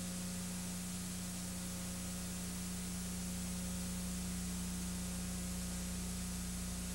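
Steady hiss with a low electrical hum and no other sound: the noise floor of a home-movie film transfer that has no soundtrack of its own.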